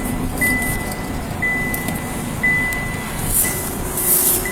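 Vehicle electronic warning tone beeping steadily about once a second, one high pitch with a sharp start to each beep, over a low steady vehicle rumble.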